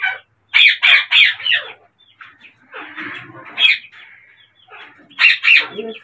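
Caged parakeets giving short, harsh squawks in quick runs: about four near the start, one a little after halfway, and two or three more near the end.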